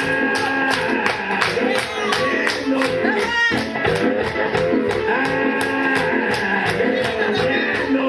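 Upbeat dance music with a steady beat and a melody line.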